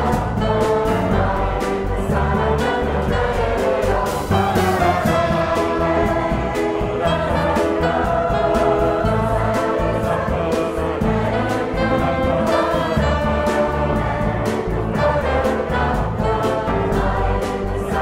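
Mixed choir singing sustained chords over a jazz quintet of piano, trombone, alto sax, double bass and drums, the drums keeping a steady beat.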